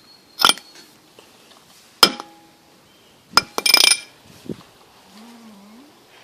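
Sharp clinks with a short ring, a few isolated strikes and then a brief rattling clatter about three and a half seconds in, like hard objects such as metal or glass knocking together. A faint low wavering tone follows about five seconds in.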